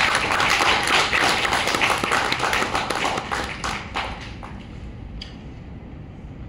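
Audience applauding, a dense patter of many hands clapping that dies away about four seconds in, leaving quiet room tone.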